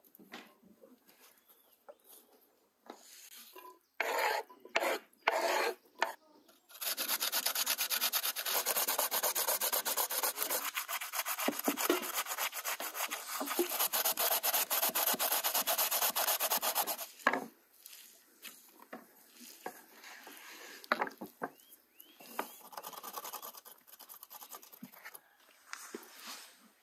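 Rasping, scraping strokes on a rough surface: a few separate scrapes, then a fast, even run of strokes lasting about ten seconds, which then gives way to fainter, scattered scraping.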